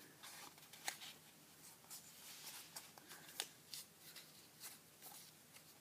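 Faint rustling of a sheet of origami paper being folded and pinched, with a few short crisp creasing sounds, the sharpest about one second and three and a half seconds in.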